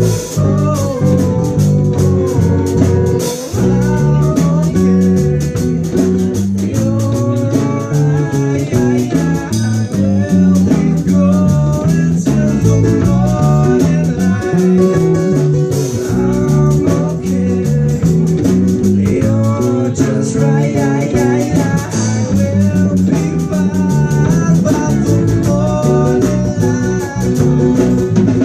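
Live band music: an instrumental break with guitar over a stepping bass line and drums.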